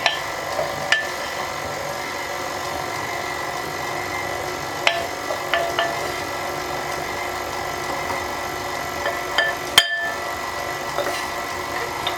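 Stand mixer motor running steadily as it mixes cookie dough while flour is added little by little. Scattered sharp taps and clinks, the loudest nearly ten seconds in.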